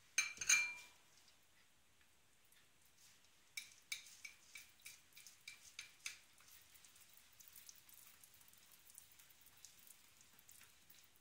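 Metal spoon stirring icing sugar and water into glaze in a glass bowl. A sharp, ringing glassy clink comes just after the start. About three and a half seconds in comes a quick run of spoon clinks against the bowl, which settles into faint, soft stirring.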